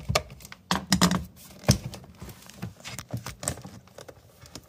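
Irregular plastic clicks and knocks from cable connectors being worked loose by hand from a Bosch dishwasher's control board. The loudest are a cluster about a second in and a sharp click a little later.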